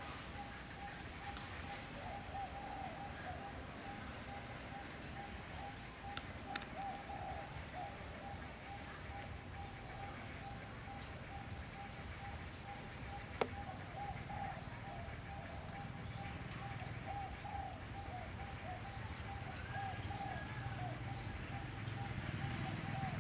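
Wild outdoor ambience of steady, rapidly pulsing animal calls, one mid-pitched and one high, going on throughout over a low rumble. A few sharp clicks, the loudest about halfway through.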